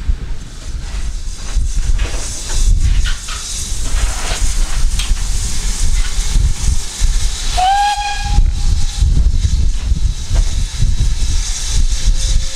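Steam locomotive's whistle sounding once, for about a second, about eight seconds in, rising slightly in pitch as it opens. Steam hiss and a heavy low rumble run underneath.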